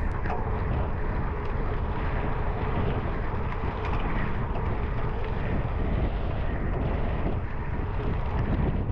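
Wind rushing over the microphone of a camera riding along on a cyclocross bike mid-race, a steady noise with low rumble from the ride.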